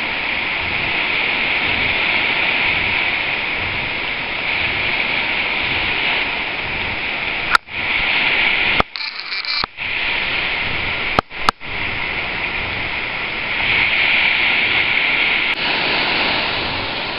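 Steady hiss of small waves washing onto the beach, with sharp clicks and brief dropouts a little past the middle.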